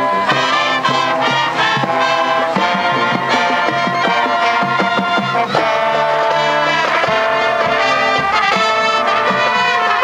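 Marching band playing a brass-led tune, trombones and trumpets over marching drums, loud and continuous.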